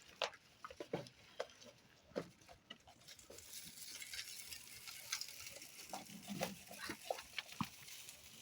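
Goats feeding at a trough on a ration of bean chaff and cereal: irregular crunching, clicks and shuffling over a steady hiss that rises about three seconds in.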